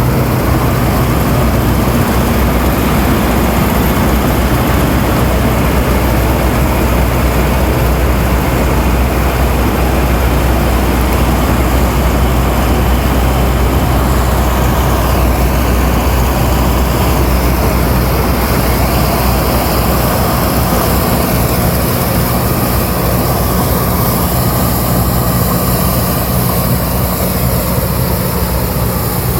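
Fortschritt E514 combine harvester running steadily, its diesel engine's low drone mixed with the dense noise of the threshing machinery; the engine note shifts a little about twenty seconds in.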